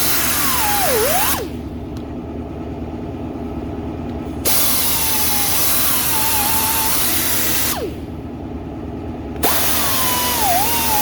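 Power tool spinning a twist-on gasket-cleaning disc, scrubbing rust off brake caliper hardware to prepare it for the pad shims; its whine dips in pitch as the disc bites. It stops twice, for about three seconds and for about a second and a half, and starts again each time.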